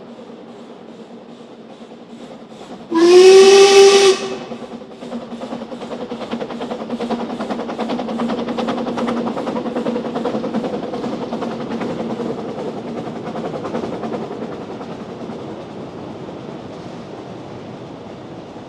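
Narrow-gauge steam locomotive gives one whistle blast about three seconds in. The whistle is about a second long and rises slightly in pitch at its start. Its exhaust beats then grow louder as it works uphill past, hauling slate wagons, and fade towards the end.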